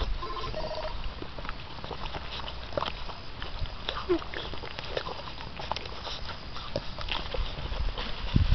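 Six-week-old American Bandog Mastiff puppies scuffling and tugging together at a chicken on a string in grass: irregular rustling, scrabbling and small clicks, with a couple of brief squeaks in the first second and another about four seconds in.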